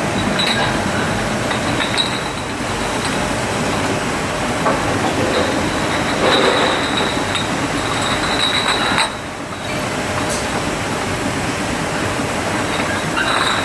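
A 1990 MAG Schimannsky Sirio 7 bottle washing machine running: a steady mechanical clatter with scattered clicks and a thin high whine that comes and goes. The level dips briefly about nine seconds in.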